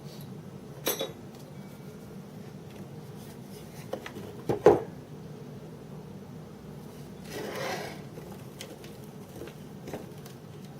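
Metal clinks and knocks as metal objects are handled, two of them sharp (the second, about halfway, is the loudest), over a steady low hum. A brief rushing swell comes near the end.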